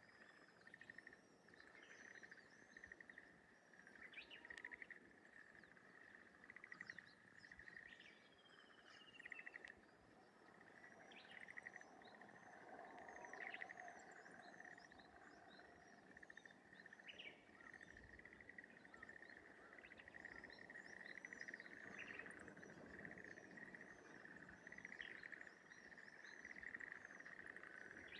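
Rice-paddy dawn chorus: a continuous rapid rattling trill from an unseen creature, which the uploader cannot place as bird, frog or something else, under many short high chirps from small birds.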